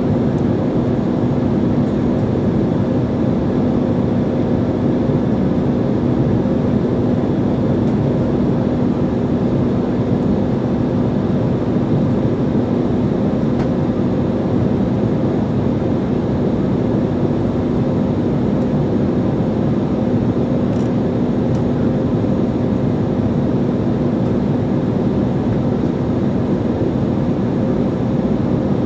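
Cabin noise of a jet airliner in flight: a steady rush of engine and airflow noise with a constant low hum underneath.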